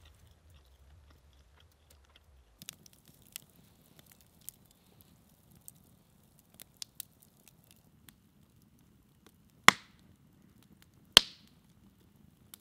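Wood campfire crackling, with scattered small snaps over a low hiss starting about two and a half seconds in, and two loud sharp pops about a second and a half apart near the end.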